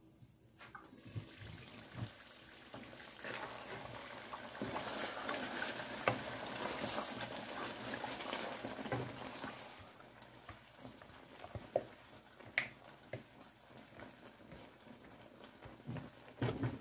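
Pot of jollof stew sauce simmering and being stirred with a wooden spoon: a steady wet hiss with scattered knocks, quieter after about ten seconds, leaving only occasional clicks.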